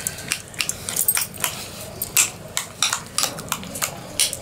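Metal spoon clinking and scraping against a glass bowl while mashing fire-roasted eggplant and tomatoes, in irregular taps several times a second.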